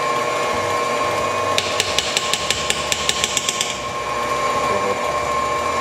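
KitchenAid stand mixer's motor running steadily as its beater whips peanut butter filling in the steel bowl. From about a second and a half in, for about two seconds, a fast, even run of sharp metal clicks as a spoon of peanut butter is worked into the bowl against the turning beater.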